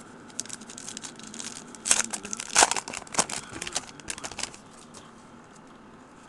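Plastic trading-card pack wrapper crinkling and tearing as it is opened and handled, in a run of sharp rustles loudest about two seconds in, then trailing off.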